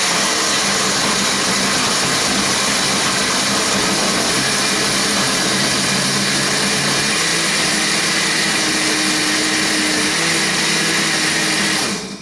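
Countertop blender running on fruit chunks, ice and wine: a loud, steady motor noise whose pitch shifts about seven seconds in. It is switched off abruptly just before the end.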